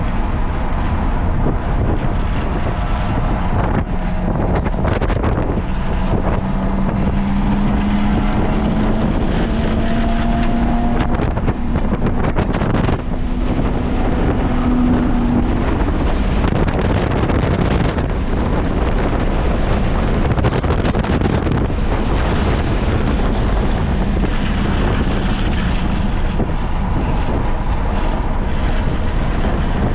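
Car at speed, heard from onboard: a loud rush of wind on the microphone, with the engine note climbing slowly from about four seconds in to about sixteen seconds, then dropping away, and rising again near the end.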